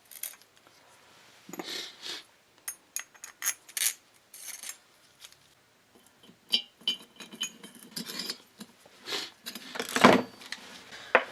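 Small metal engine parts and hand tools clinking and clacking as they are handled, with a couple of brief rubbing sounds and a louder knock about ten seconds in.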